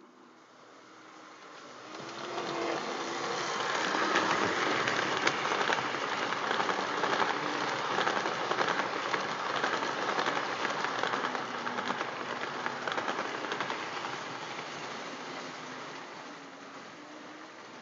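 O gauge three-rail model train cars rolling past on the track: a rushing, ticking clatter of wheels on rail that builds over a couple of seconds, stays loud through the middle, then slowly fades as the train moves away.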